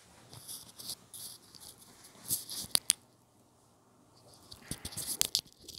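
Rustling with scattered sharp clicks, grouped about two to three seconds in and again near the end.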